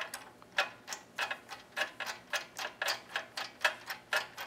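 A 3/8-inch ratchet on a long extension and socket clicking quickly and unevenly, about three or four light metallic clicks a second, as it is worked back and forth to thread a spark plug in by hand.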